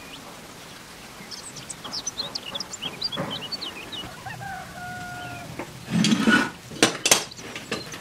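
Birds chirping in quick, high notes, with a held two-note call in the middle. Near the end come a loud rustling burst and a few sharp knocks.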